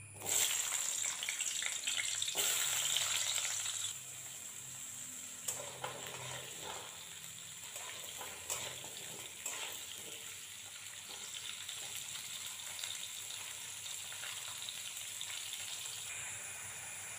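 Cubed raw potatoes hitting hot oil in a kadhai and frying: a loud sizzle for the first few seconds that then settles into a steadier, quieter sizzle. A metal spatula clicks and scrapes against the pan now and then as the potatoes are stirred.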